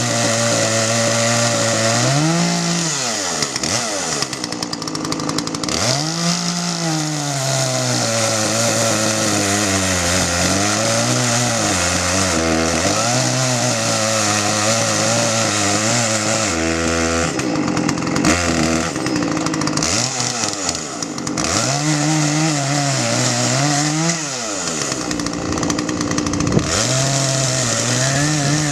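Poulan P3816 38 cc two-stroke chainsaw running, its throttle opened and released again and again so the engine pitch rises and falls back to a steady lower speed, with one longer run up to high revs about two-thirds of the way through.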